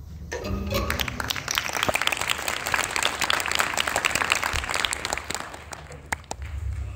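Audience applause: many hands clapping, swelling in within the first second and dying away near the end.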